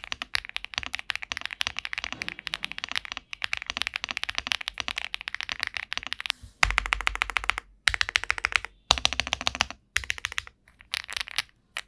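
Fast typing on a Furycube F75s mechanical keyboard with HMX Lime Grape linear switches: a dense run of keystroke clacks broken by a few short pauses. The strokes get deeper and heavier from about six and a half seconds in.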